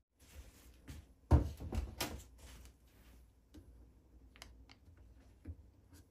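Handling noise: a run of knocks and clicks, loudest in a cluster about a second and a half in, then a few light scattered ticks.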